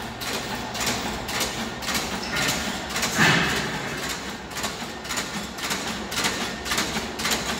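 Antique stationary engines running together in a hall, giving a rapid, uneven clatter of knocks and clicks over a steady mechanical running sound, with one louder clank about three seconds in.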